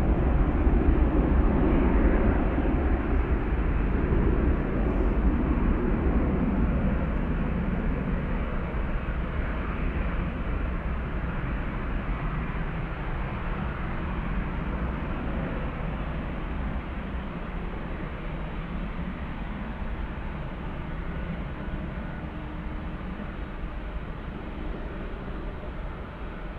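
Boeing 757's jet engines running at takeoff power, the rumble slowly fading as the airliner flies away.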